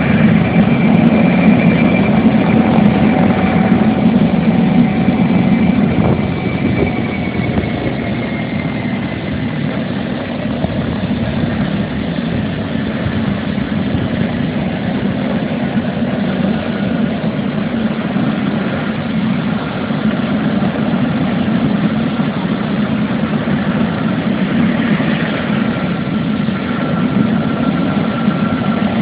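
Landed helicopter running on the ground: a steady low hum with a high whine whose pitch slowly drops. A car drives past at the start.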